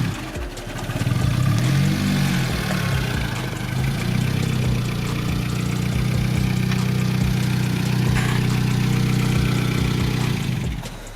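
A car engine revs up and eases off about two seconds in, then runs at a steady low note while the car moves off at low speed. It drops away shortly before the end.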